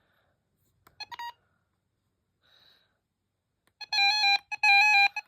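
Weather radio's electronic alert tone. A few short beeps come about a second in, then from about four seconds a loud warbling beep that steps between two pitches and repeats in half-second pulses.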